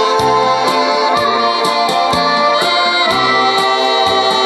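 Saxophone playing a slow melody of held notes over a recorded backing track with a steady drum beat of about two hits a second.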